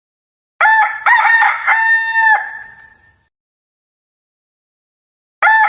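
Rooster crowing: one long multi-part crow about half a second in that fades away, then dead silence, and a second crow starting near the end.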